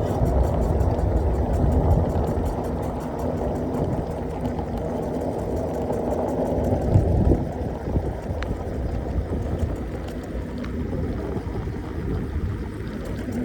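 Ride noise from an 800 W electric scooter rolling along a street: a continuous low rumble of wind on the microphone and tyres on the road.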